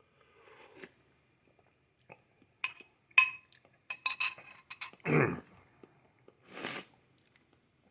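Metal spoon clinking and scraping against a soup bowl several times, with a brief ringing after the sharper strikes. A louder short noisy sound follows about five seconds in, and a softer one shortly after.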